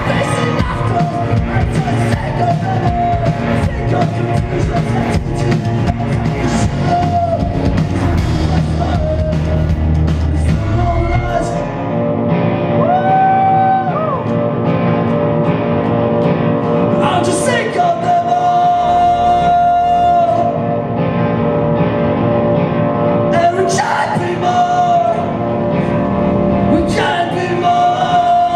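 Hardcore band playing live, with singing over guitars. The full band with drums and bass plays for about the first twelve seconds, then drops to ringing, sustained guitar notes, with the heavy low end returning briefly twice later on.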